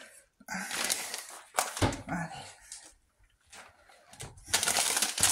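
Plastic bag of grated cheese crinkling as it is handled: scattered rustles in the first half, a short lull, then loud continuous crinkling from about four and a half seconds in.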